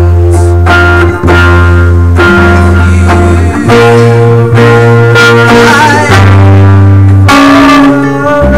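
Rock band rehearsing: electric guitars over a bass guitar, playing loud held chords with a deep bass note underneath that change every second or so. A wavering note comes in about six seconds in.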